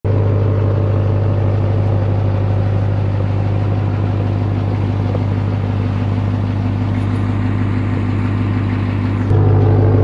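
Ram TRX's supercharged 6.2-litre Hemi V8 idling steadily, getting a little louder about nine seconds in.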